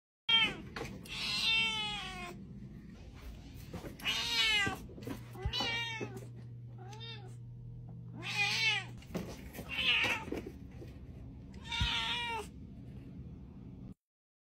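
A cat chirping and chattering in about seven short bursts of quick, warbling calls, the first and longest lasting nearly two seconds.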